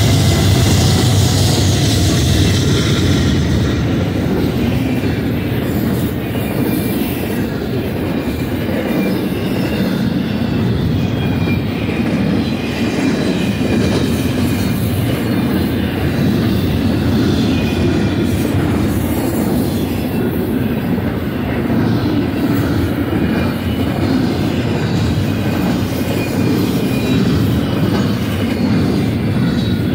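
BNSF double-stack intermodal freight train passing at speed. The trailing GE Dash 9-44CW diesel locomotives go by in the first few seconds with a heavier low rumble. After that comes the steady rumble of the container well cars' wheels on the rails.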